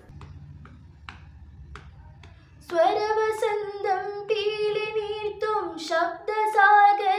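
A girl singing solo with no accompaniment, one voice holding long, slowly bending notes. It begins about a third of the way in, after a pause that holds only a faint low hum and a few small clicks.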